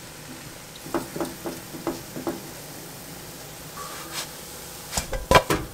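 A wooden spatula tapping a few times against a nonstick frying pan of mashed potato, over a faint steady sizzle of frying in butter. Near the end come several loud knocks as the pan is handled on the gas stove's grate.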